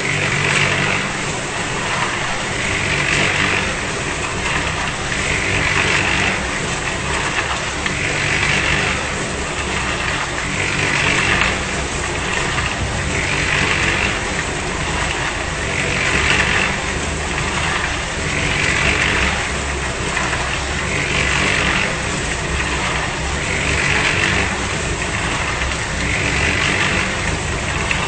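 Concrete mixer running, with a steady motor hum under it. A brighter swell comes back about every two and a half seconds.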